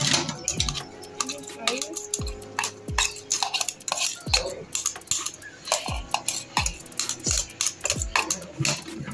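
Metal spoon clinking and scraping against a stainless steel bowl, stirring diced onion into baked beans. Background music with a steady beat plays under it.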